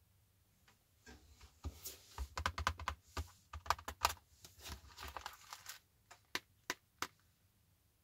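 Hands handling a plastic-wrapped keyboard box: a quick run of clicks, taps and crinkles of the wrapping, then three separate clicks near the end.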